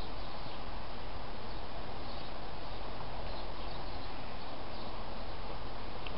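Steady outdoor background noise with no distinct events, and faint high chirps here and there.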